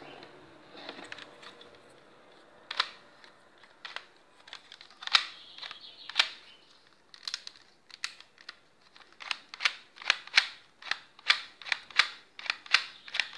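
Sharp plastic clicks from a hand-built Lego Glock 43 model pistol being handled, its rubber-band-sprung brick slide worked back and forth. A few scattered clicks come first, then a quicker run of about two clicks a second from about halfway through.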